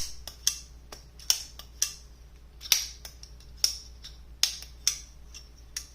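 Sencut Serene button-lock folding knife with aluminium handles being fidgeted: the blade is flicked open and dropped shut again and again, making a string of sharp metallic snaps and clicks, two or three a second and some in quick pairs.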